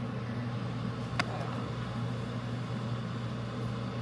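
A steady low mechanical hum from a running appliance or fan, with one sharp click about a second in.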